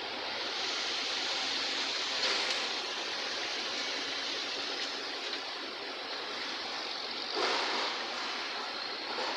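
Steady rushing roar of heavy diesel machinery and a semi-trailer tipper truck moving slowly, with brief louder swells about two seconds in and near the end.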